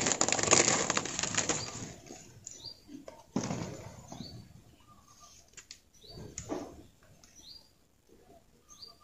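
Thin plastic window-tint film crinkling and flapping as the cut sheets are shaken and handled, loudest over the first two seconds, with a few shorter rustles after.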